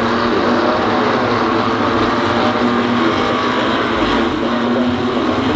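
BMW M2 Cup race cars' twin-turbo straight-six engines running hard under racing load, a loud continuous engine note.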